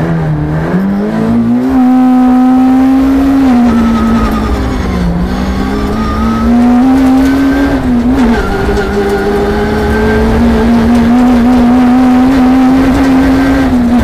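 Peugeot 306 rear-wheel-drive rally car's engine heard from inside the cabin, pulling hard on a gravel stage. The revs climb quickly and hold high, dip briefly twice (about five and eight seconds in), then hold steady high again.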